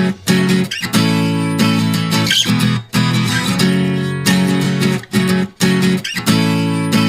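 Background music of strummed acoustic guitar chords, broken by short gaps about once a second.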